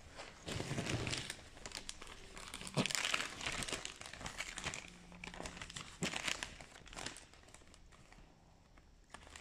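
Packaging being opened by hand: irregular crinkling and rustling with some tearing, coming in bursts and dying down near the end.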